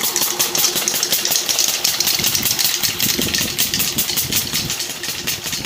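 12 HP Lister diesel engine of a water pump set running steadily, with an even, rapid beat of firing strokes, several a second.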